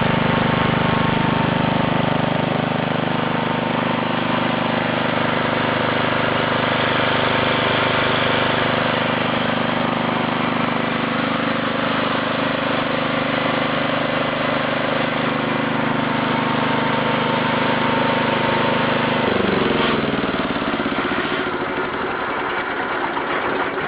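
Norton concrete saw's engine running steadily at a constant speed, then slowing with a sharp drop in pitch about twenty seconds in.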